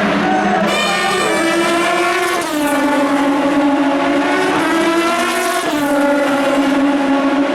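Endurance race car engine at full throttle, accelerating past. Its pitch rises, then drops at an upshift about two and a half seconds in and again at a second upshift a few seconds later, over the sound of other cars running.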